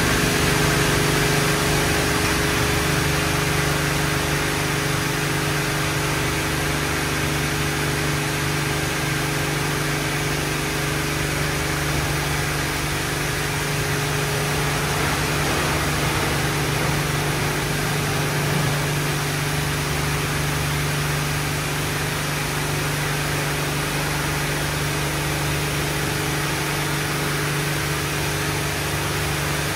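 Christ GENIUS C160 rollover car wash running through its wash cycle: a steady machine hum under a constant, even hiss.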